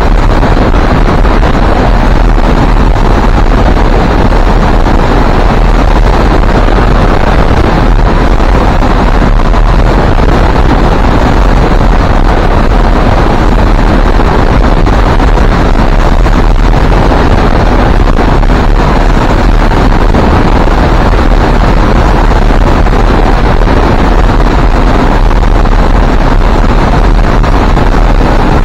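Loud, steady wind rushing over the microphone of a hang glider in flight, an unbroken roar with no break or change.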